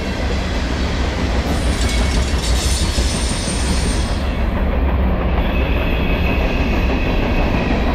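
Loaded tank cars and covered steel-coil cars of a CSX manifest freight train rolling past: a steady, loud low rumble of wheels on rail. A thin high wheel squeal rides on top, very high at first, then lower from about five seconds in.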